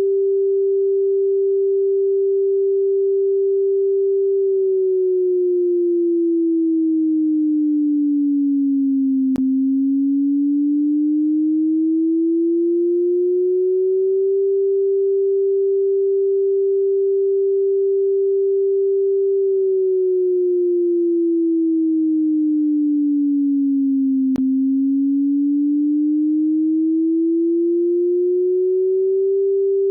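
Synthesized tsunami warning siren signal made as a single pure sine tone, simulating the national-standard warning sound. It is held steady, then slides down in pitch and back up over about ten seconds, a cycle that repeats twice. A faint click marks the lowest point of each dip.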